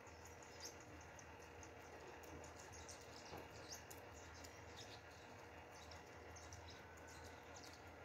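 Near silence: faint room tone with a low hum and scattered faint, high-pitched chirps.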